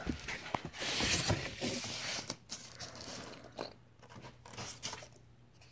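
A cardboard box being opened and its packaging handled, making rustling and scraping with scattered clicks. It is loudest in the first couple of seconds, then quieter with a few light rubs and clicks.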